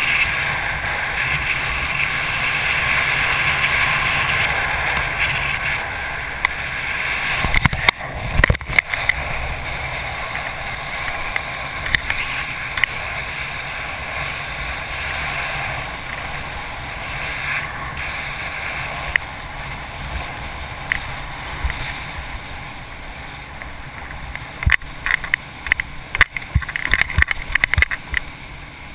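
Wind and water rushing past a wakeboarder's camera while he is towed behind a boat, a steady rushing noise. Sharp knocks and crackles come about 8 seconds in and again in a cluster near the end.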